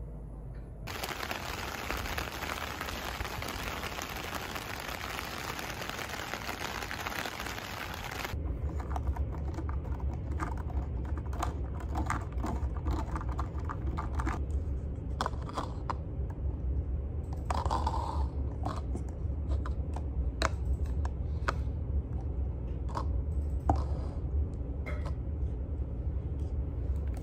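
An even rushing noise for about the first eight seconds, then scattered clicks of a computer keyboard being typed on, mixed with small desk handling sounds, over a steady low hum.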